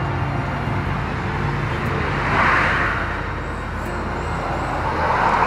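Car engine running at idle, a steady low hum, with a rush of road or wind noise that swells and fades about halfway through and rises again near the end.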